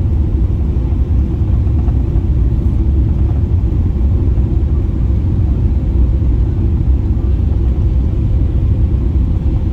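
Steady, loud, low rumble inside the cabin of a Boeing 777-300ER airliner: engine and airflow noise, unchanging throughout.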